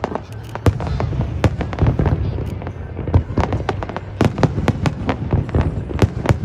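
Aerial fireworks bursting in rapid succession: many sharp bangs, often several a second, over a continuous low rumble.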